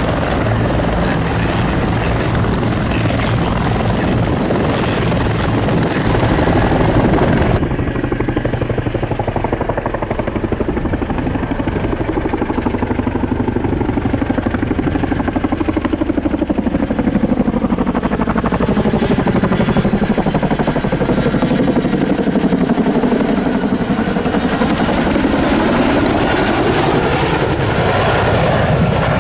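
CH-146 Griffon (Bell 412) rescue helicopter running on the ground with its main rotor turning. About eight seconds in, the sound switches to a CH-147 Chinook tandem-rotor helicopter flying overhead, its rotor and engine sound sweeping in pitch as it moves, with a high whine that falls slightly near the end.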